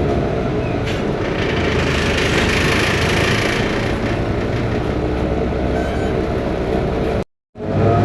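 Inside a BMC Belde city bus under way: its Cummins ISBe turbo diesel runs steadily under a constant road and cabin noise, an engine sound that the uploader calls faulty. The sound cuts out completely for a moment about seven seconds in.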